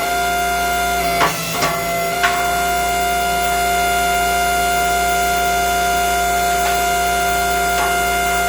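Background electric guitar music: a few notes plucked in the first couple of seconds, then a chord left ringing steadily.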